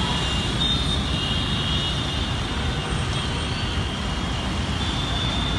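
Steady din of mixed city road traffic at a busy intersection: engines of cars, buses, motorbikes and auto-rickshaws running together in an even, low rumble, with a few faint, thin high tones above it.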